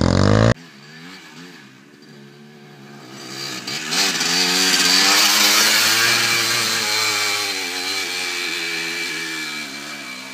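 Dirt bike engine running while the bike passes close by on a trail and rides away. The revs rise and fall with the throttle, loudest around the middle, then fading. About half a second in, a louder engine sound cuts off abruptly.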